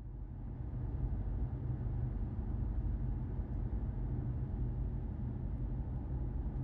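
Steady low rumble of a car driving, heard from inside the cabin: engine and tyre noise on the road, fading in over the first second.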